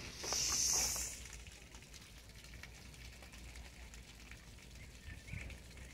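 A short burst of steam hissing from a steam locomotive, less than a second long, followed by a faint low rumble.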